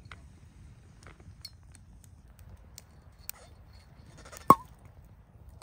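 Cork drawn from a wine bottle with a corkscrew, coming out with a single sharp pop about four and a half seconds in. Faint scattered clicks come before it.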